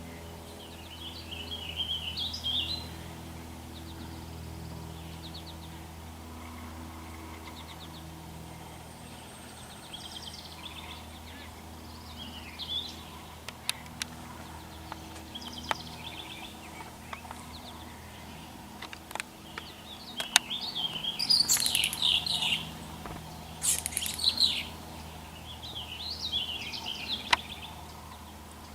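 Birds chirping and calling outdoors in short bursts, loudest and harshest about two-thirds of the way through, with a few single sharp clicks and a steady low hum underneath.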